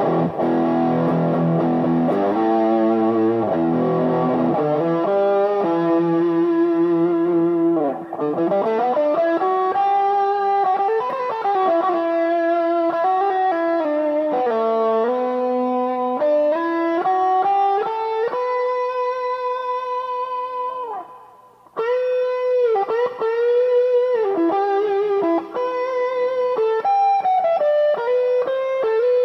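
Washburn MG-300 electric guitar being played. It opens with ringing chords, then moves into a single-note lead line with string bends and vibrato, with a short pause about three-quarters of the way through.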